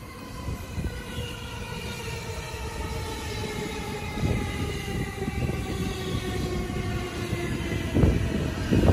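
JR Keiyo Line E233-series electric commuter train pulling in: the whine of its traction motors falls slowly in pitch as it brakes, over the rumble of wheels on the rails. It grows gradually louder as the cars pass close by.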